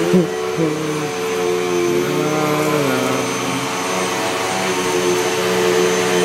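Household vacuum cleaner running steadily: an even rushing noise with a constant hum, and lower tones that dip and shift in pitch a few times.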